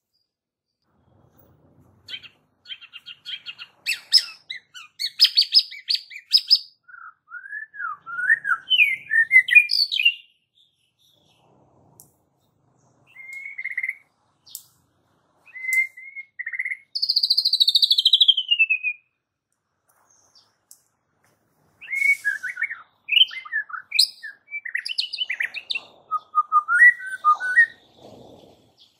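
White-rumped shama (murai batu) singing varied phrases: quick rattling trills, rising whistled notes, and about midway a long whistle falling in pitch, with short pauses between the phrases.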